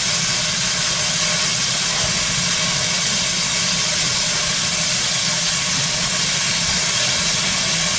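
Steady hiss of steam from a standing ex-Great Western steam locomotive.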